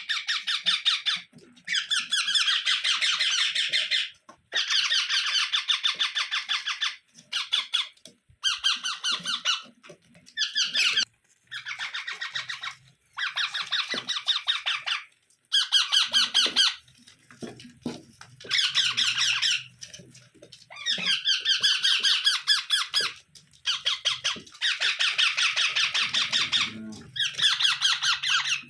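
Pet parrot calling in about a dozen bouts of rapid, buzzy, pulsed calls, each one to three seconds long, with short pauses between.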